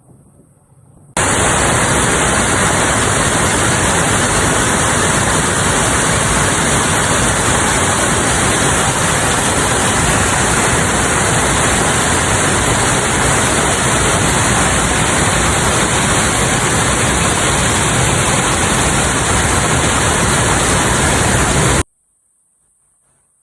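Loud, steady rushing noise that starts suddenly about a second in and cuts off suddenly near the end.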